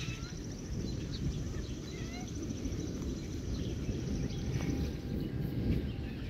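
Songbirds chirping, with a fast high-pitched trill in the first half, over a continuous low rumble.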